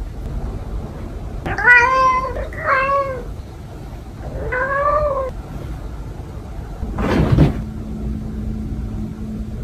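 Domestic cat meowing three times to wake its owner in the morning, each call rising then falling in pitch. A short noisy burst comes about seven seconds in, followed by a faint low steady hum.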